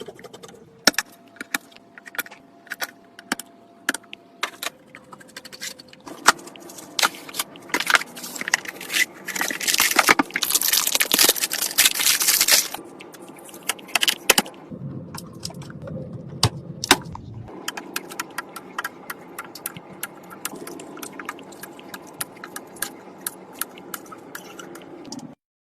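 Clicks, taps and light clattering of PC hardware being handled and fitted during assembly, with a few seconds of rustling about ten seconds in.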